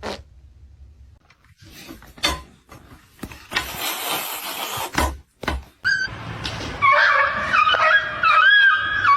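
A few knocks and a rustling scrape, then a drawn-out, wavering whine from a pet animal in the last two seconds or so.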